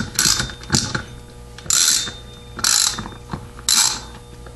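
Ratchet wrench clicking in about five short bursts, roughly one a second, as bolts are run down snug by hand.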